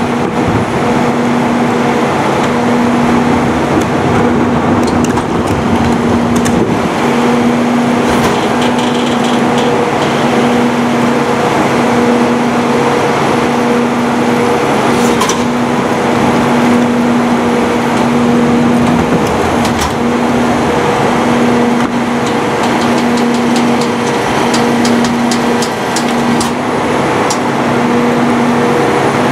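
Garbage truck running with its rear-loader body at work: engine, hydraulic cart tippers and packer, with a low hum that cuts in and out about once a second. Scattered sharp metallic clanks of plastic carts and the hopper come through, several in quick succession near the end.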